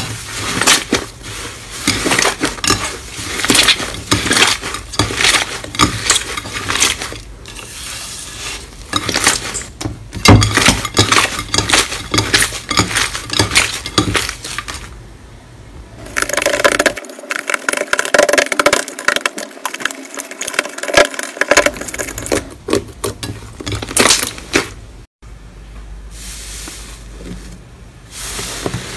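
Hands squeezing, folding and tearing thick green slime in a dish: a dense stream of sticky crackles, pops and clicks. The sound changes about two-thirds of the way through, and again near the end where a different slime is pressed flat under the palms.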